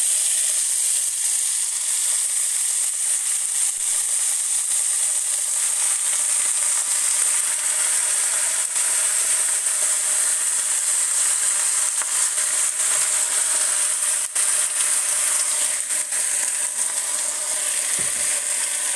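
Rack of lamb and wild garlic sizzling steadily in a hot enamelled cast-iron casserole, with scattered crackling spits.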